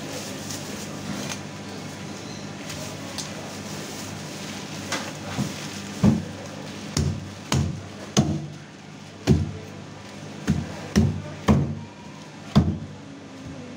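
A cleaver chopping through a giant grouper behind the head onto a thick wooden chopping block: about nine sharp knocks at uneven spacing through the second half, over a steady low hum.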